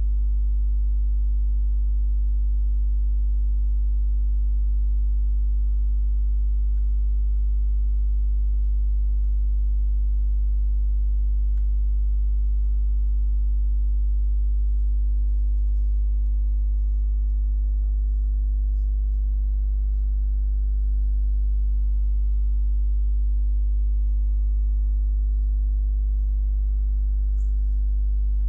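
Steady electrical mains hum: a loud, unchanging low drone with a ladder of overtones above it. Near the middle and again near the end there is a faint click.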